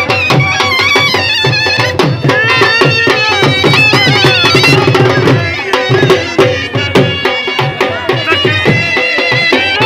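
Shehnai playing a high, ornamented folk melody with sliding, wavering pitch, over a dhol drum beating a steady rhythm.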